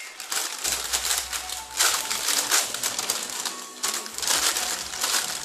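Thin plastic shopping bag crinkling and rustling as a cat bites and tugs at it, in bursts that are loudest about two seconds in and again around four seconds in.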